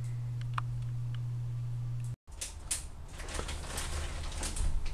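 A steady low hum, then after a cut, scattered light clicks and knocks of a countertop blender and kitchen items being handled at the counter.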